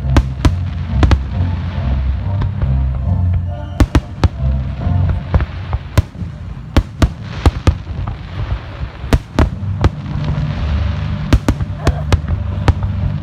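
Aerial fireworks going off in a rapid, irregular series of sharp bangs and cracks, over music with a heavy bass line playing through loudspeakers.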